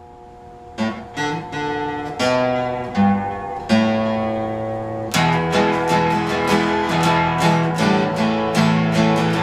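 Acoustic guitar playing a song's intro: a few chords struck one at a time and left to ring, then about five seconds in a steady strumming rhythm begins.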